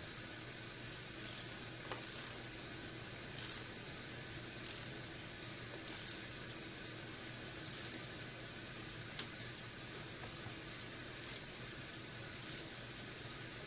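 A ratchet tool clicks in about eight short bursts at irregular intervals as the terminal nuts of a boiler's electric heating element are tightened. A faint steady hum runs underneath.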